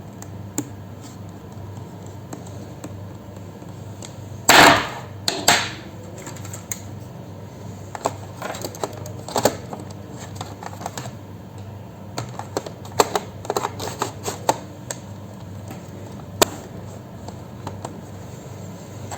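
Hands working on a laptop's plastic and metal parts: scattered clicks and taps, with two louder scraping clacks about four and five seconds in and a run of clicks in the middle, over a steady low hum.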